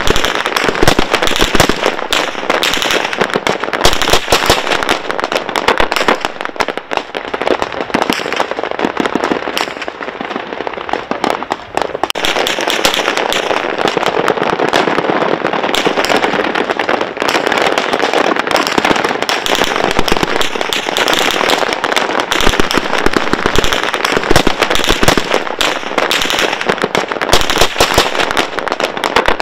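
Sustained small-arms gunfire aimed at a drone overhead: many rifles firing at once, the shots overlapping with hardly a pause.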